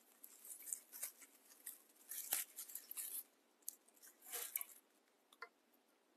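Dry raffia rustling and crinkling as it is handled and spread out, in irregular bursts that stop about five seconds in, followed by one small click.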